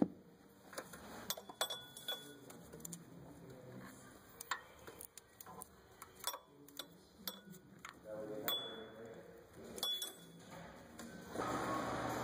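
Ratchet wrench clicking in irregular spurts, with light metal clinks of tools, while loosening the water pump bolts on a Toyota 2.4L engine. A steady hiss comes in near the end.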